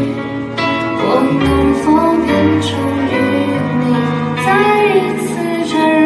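Live performance of a gentle folk-pop ballad: a woman singing over violin, acoustic guitar and keyboard.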